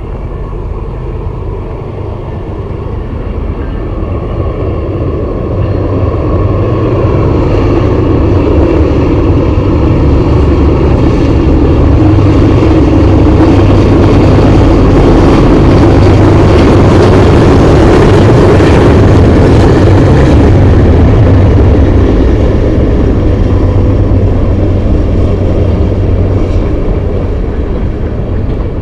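Two Norfolk Southern diesel locomotives haul a hopper train close past, their engine rumble building to a peak about halfway through and then easing as the hopper cars roll by. The sound is very loud and harsh through a camcorder microphone that records close trains badly.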